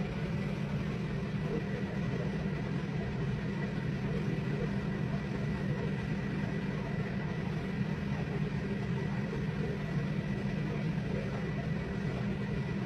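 Steady low mechanical hum with a thin, high steady tone above it, unchanging throughout.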